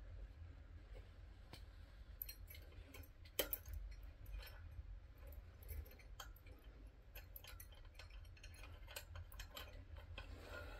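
A curtain being fitted onto a tension rod: faint, irregular light clicks and taps, the sharpest about three seconds in, over a low steady hum.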